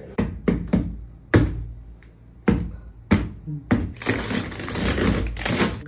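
Cardboard shipping box being handled and torn open: several sharp knocks on the cardboard, then about two seconds of dense tearing noise near the end.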